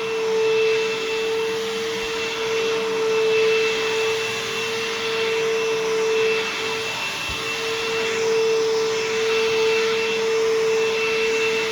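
Bissell CleanView Helix bagless vacuum cleaner running steadily over carpet: a steady motor whine over the rush of air.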